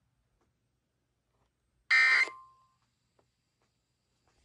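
A weather alert radio receiver gives one short, high electronic burst about two seconds in, trailing off into a faint, lower steady tone for about half a second; the rest is near silence, with a sharp click right at the end.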